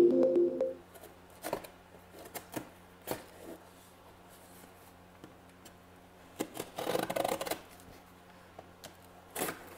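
Electronic intro music stops in the first second. Then a cardboard shipping box is handled: scattered light taps and knocks on the cardboard, a longer rasping rub of fingers on the box and tape about seven seconds in, and a short scrape near the end.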